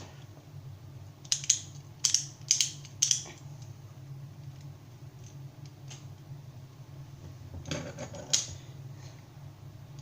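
Beyblade Burst top's plastic parts clicking and ratcheting as they are slid, fitted and twisted together: four sharp clicks in quick succession, then another short cluster of clicks near the end.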